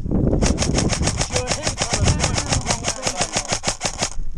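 Airsoft electric gun firing one long full-auto burst, about nine or ten shots a second for roughly three and a half seconds, with the gearbox motor running under it.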